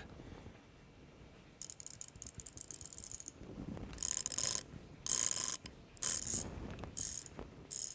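SK X-Frame ratcheting wrench being swung back and forth, its fine-toothed, six-pawl ratchet giving a fast, fine clicking buzz. It makes one longer run about one and a half seconds in, then five short strokes about a second apart, a sound the reviewer calls super smooth.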